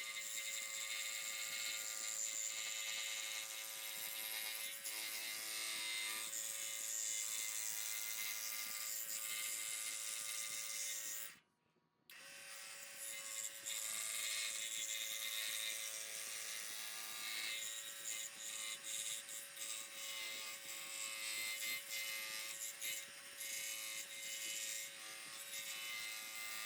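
Scroll saw running steadily, its reciprocating blade cutting through thick wood with a constant motor hum and a high buzz. The sound cuts out suddenly for about half a second around the middle, then the saw carries on.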